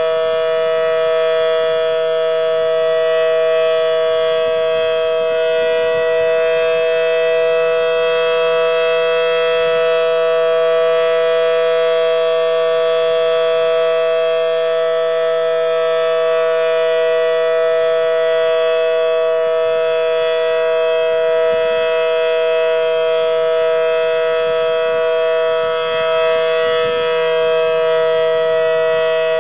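Federal Signal Model 7T outdoor warning siren sounding its steady Alert signal. It is a loud, continuous two-note chord held at an even pitch, with no rise or fall.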